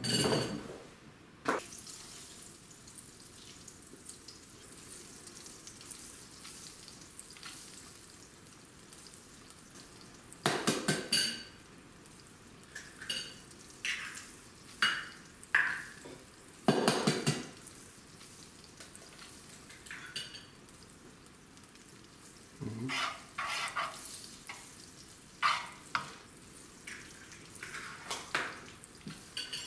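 Hen's eggs being cracked against a glass bowl and their shells pulled apart, with spoon taps on the glass: a scatter of sharp knocks and cracks, bunched around the middle and again near the end, over a faint steady hiss.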